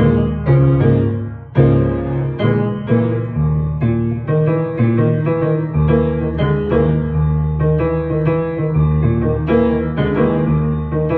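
Solo jazz piano improvisation: chords struck over held low bass notes, with a new note or chord several times a second.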